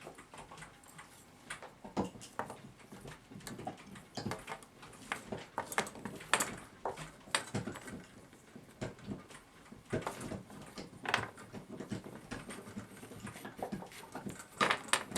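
Irregular light clicks, taps and scrapes of a coiled steel clock mainspring being handled and rubbed with grease on a cotton swab.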